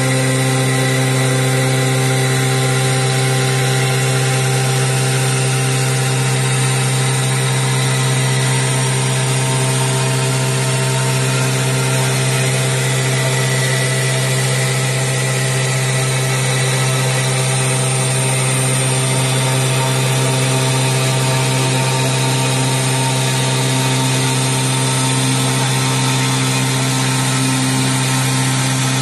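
CNC machine spindle with its cutting tool grinding a wet white slab under a water spray, running at a constant speed: a steady machine hum with fixed whining tones above it.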